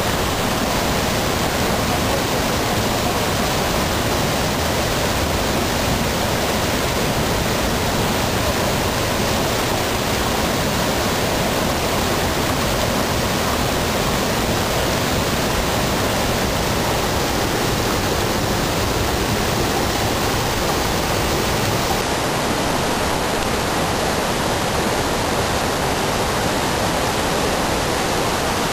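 Whitewater river rapids rushing over boulders, a steady, unbroken roar of water.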